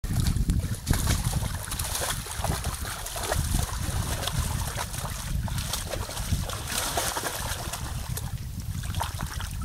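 A dog splashing and sloshing water in a plastic paddling pool as it paws and dips into it, in irregular bursts that are thickest around a second in and again about two-thirds of the way through. A low wind rumble on the microphone runs underneath.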